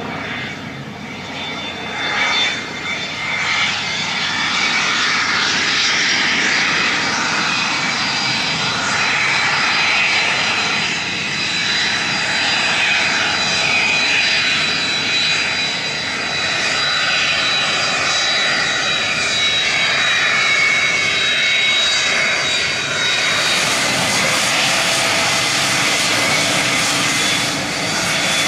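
A Cessna 550 Citation II's twin Pratt & Whitney JT15D turbofans run as the jet taxis after landing. It is a steady jet rush with a high whine, louder from a few seconds in.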